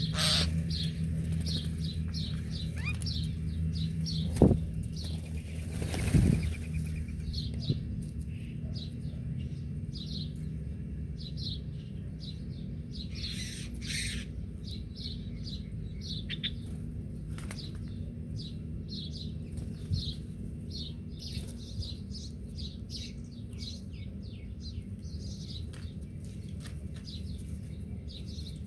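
Small birds chirping: many short, high chirps repeating rapidly throughout, over a steady low hum. Two thumps come about 4.5 and 6 seconds in and are the loudest sounds.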